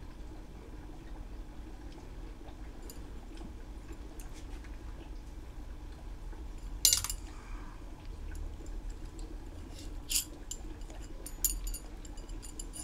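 Long steel cylinder studs for a Honda C70 engine clinking against one another as they are handled and sorted, with one sharp clink about seven seconds in and several lighter ones near the end, over a low steady hum.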